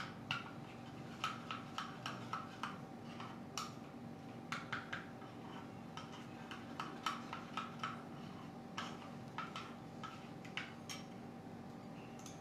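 Metal spoon clinking and scraping against a glass bowl while stirring food colour into batter, in irregular clusters of light clicks. A faint steady hum runs underneath.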